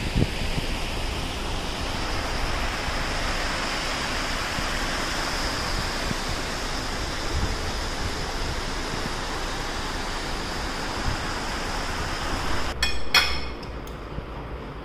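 Steady rushing of river water flowing over rocks. Near the end it gives way to a few sharp clinks of a metal spoon against plates.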